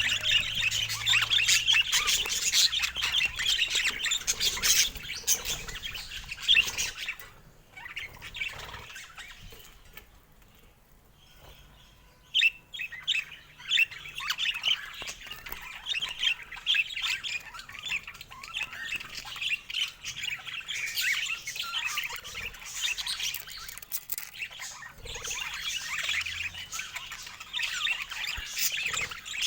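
Budgerigars chattering, with fast chirps and squawks. The chatter dies down to a near lull about a quarter of the way in, then starts up again a few seconds later and keeps on busily.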